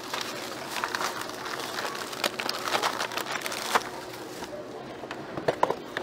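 Irregular clicks, knocks and rustling of merchandise being handled at a store checkout, over a faint steady hum.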